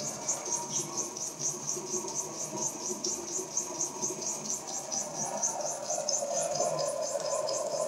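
Two small model steam beam engines running together under steam. Their exhaust hisses in a quick, even patter of about five puffs a second, over a steady low rushing.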